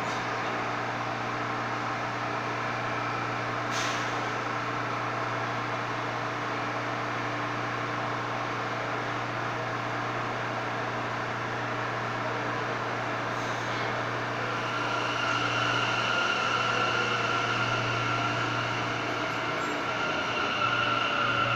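New York City Subway train standing at the platform with a steady electrical hum and ventilation noise, with a short sharp click about four seconds in and again past the middle. From about fifteen seconds in it grows louder, with a steady high whine as a train moves on the track.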